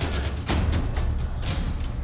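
Background music with a heavy, steady low drum and bass line.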